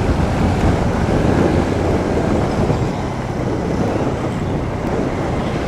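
Royal Enfield Bullet's single-cylinder four-stroke engine running steadily under way, its low exhaust beat heard with the rush of riding.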